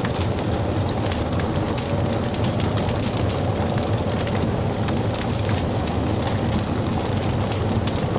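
Wood fire burning: a steady low rumble of flames with frequent small crackles and gentle pops.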